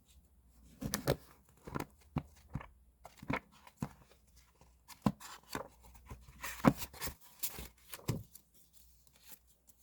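Irregular handling noises: a string of short taps, knocks and rustles, heaviest about two-thirds of the way through, with a sharp knock just before then.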